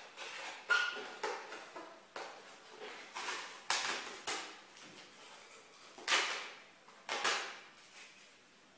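Packaging being handled: an irregular series of sharp scrapes, knocks and rustles, each fading quickly, as parts of a model car's box are pulled out and moved.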